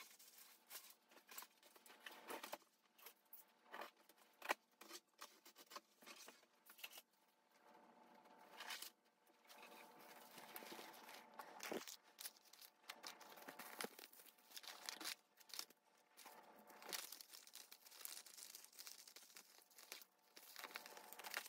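Quiet crinkling and rustling of plastic packaging handled by hand: a bubble-lined mailer and film pouches, with many small irregular crackles.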